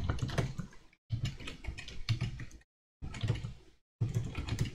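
Typing on a computer keyboard: quick key clicks in short runs, broken by brief gaps of dead silence.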